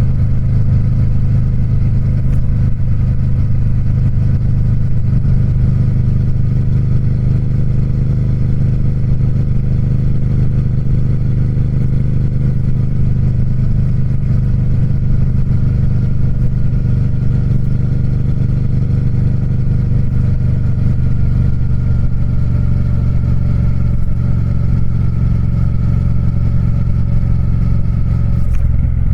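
Triumph Speed Twin's parallel-twin engine and exhaust running steadily at a near-constant pitch, which sags slowly through the second half before a change right at the end.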